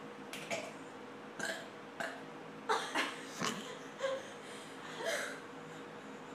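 A person forcing out a string of short burps and gulping throat sounds, trying to burp a letter of the alphabet; the loudest come around the middle, one sliding down in pitch.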